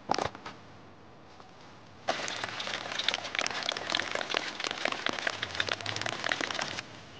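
A brief sharp knock at the start, then a plastic shaker bottle of whey protein powder and water shaken hard for about five seconds: a fast, dense rattling and sloshing that stops suddenly. The powder is being mixed into the water.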